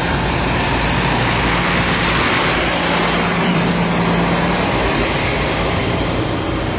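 Steady road and wind noise of a moving car, with a faint low engine hum.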